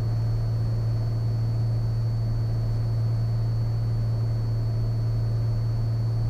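Steady low drone of a Cessna 182 Skylane's piston engine and propeller heard inside the cabin, at an even setting on approach to land, with a faint steady high whine over it.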